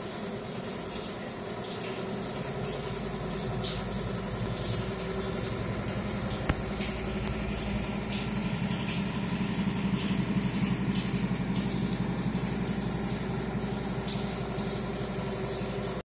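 A steady low machine drone, with one sharp click a little before halfway; it cuts off suddenly near the end.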